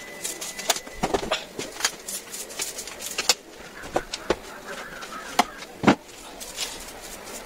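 A soft-bristled broom sweeping a tiled floor: quick, irregular swishes and scratchy ticks of the bristles on the tiles, with a louder knock about six seconds in.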